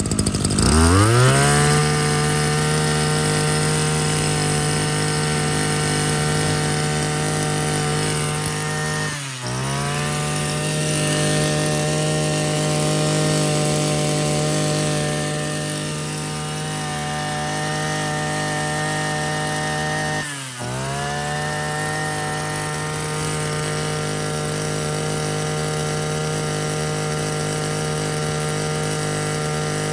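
Shindaiwa S35 35cc two-stroke brush cutter engine revving up about a second in, then held at high speed. Twice, about 9 and 20 seconds in, the revs dip briefly and climb straight back as the throttle is eased and reopened, showing how quickly it picks up.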